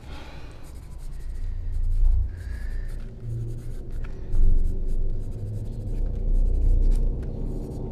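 Pencil scratching on the paper of a spiral notebook in quick strokes as someone writes, over a low drone that swells in the low end.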